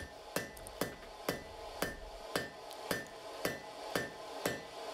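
Hand hammer striking a glowing half-inch square bar on a farrier's anvil, about two blows a second, each blow with a short ring: the hot bar is being drawn down into a smooth taper.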